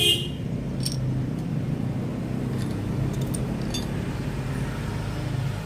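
Steady low mechanical hum, like an engine running nearby, with a sharp metallic clink at the start and a lighter one about a second in, then a few faint clicks as metal engine parts are handled.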